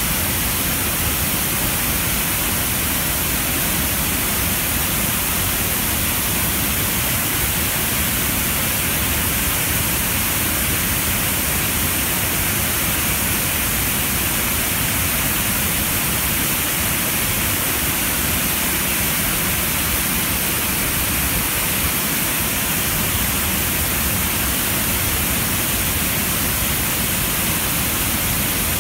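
Water pouring over a concrete dam's spillway gates and crashing into the river below: a loud, steady rush.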